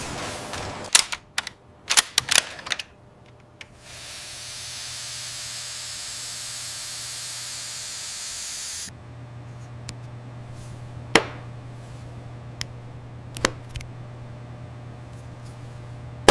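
Machine sounds: a quick run of sharp clacks, then a steady hiss for about five seconds that stops abruptly, followed by a low steady hum with a few scattered clicks.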